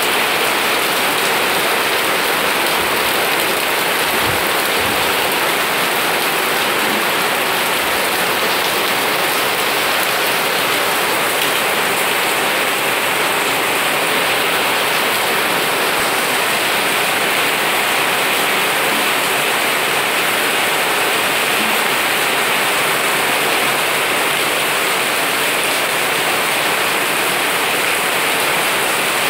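Heavy rain pouring steadily onto plants and paving, a dense, even hiss.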